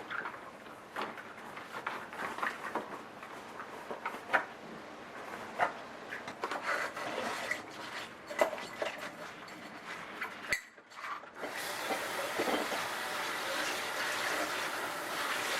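Dishes and utensils clinking and knocking in irregular taps for about ten seconds. After a short gap, water runs in a steady rush.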